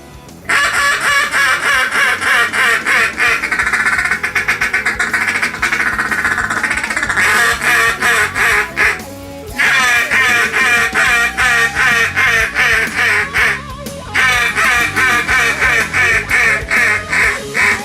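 Mallard duck call blown in rapid feed-chuckle runs and quacks, over background music.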